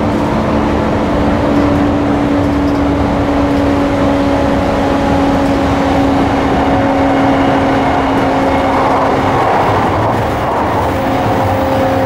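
JR East E235-1000 series electric train running at a steady speed, heard inside the car: a steady hum from the Mitsubishi SiC-VVVF-driven traction motors and gears over wheel and rail rumble. The pitch sinks slightly and climbs again near the end as the speed eases and picks up.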